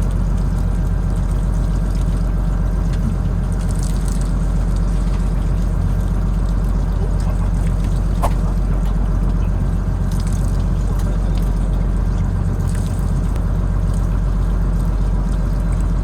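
Steady low hum of a fishing boat's machinery running at a constant speed, with water trickling faintly and a small click about eight seconds in.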